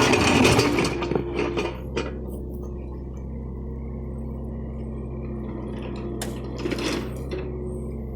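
John Deere excavator's diesel engine running steadily, with loud clanking and scraping in the first two seconds and a few sharp clanks again about six and seven seconds in.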